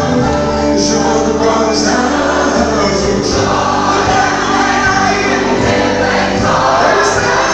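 Live gospel worship music: a singer on a microphone with many voices singing together over sustained instrumental backing.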